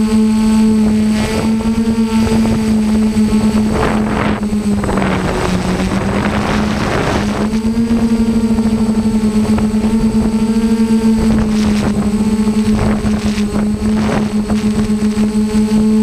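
DJI F550 hexacopter's six motors and propellers humming steadily in flight, the pitch dipping about five seconds in and rising again near eight seconds. Wind buffets the microphone in gusts, most strongly from about four to seven seconds in.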